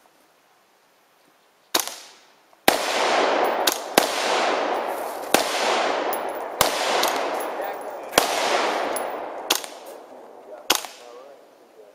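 Rifle shots fired one at a time, about eight of them, each a second or so after the last, with a long echo hanging between them.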